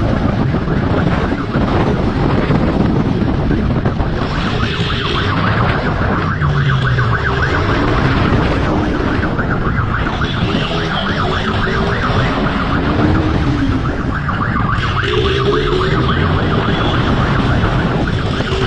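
Police motorcycle ridden hard in pursuit: the engine revs up and down under heavy wind rush on the on-board microphone, and a siren sounds on and off over it.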